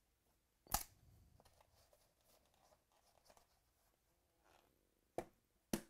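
A cardboard trading-card box being handled and opened: a sharp tap about a second in, faint sliding and rustling of the lid and cardboard, then two more sharp taps near the end.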